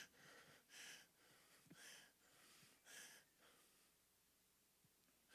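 Near silence, broken by a man's faint breaths into a handheld microphone, about one a second.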